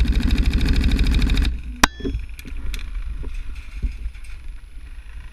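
Tokyo Marui HK416D Recoil Shock airsoft electric gun firing a full-auto burst, a rapid, even mechanical rattle of roughly fifteen shots a second that stops about a second and a half in. A single sharp crack follows shortly after, then a couple of lighter clicks.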